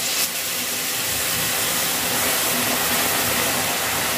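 Tomato wedges frying in a hot pan, sizzling and hissing steadily as a white liquid is poured over them and stirred with chopsticks.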